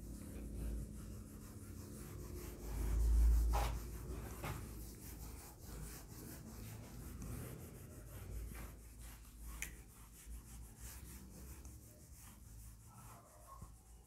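A whiteboard duster rubbing across a whiteboard, wiping off marker writing. It is a faint, low scrubbing that swells loudest about three seconds in, with a few light clicks.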